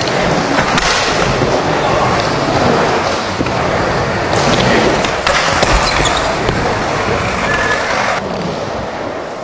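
Skateboard wheels rolling on a wooden bowl surface, a steady rumble with a few sharp knocks of the board, easing a little near the end.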